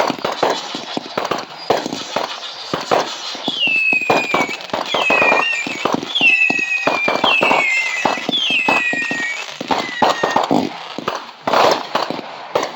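Fireworks going off in rapid succession: a dense run of bangs and crackles. Between about 3 and 10 seconds in, five high whistles each slide down in pitch and then level off.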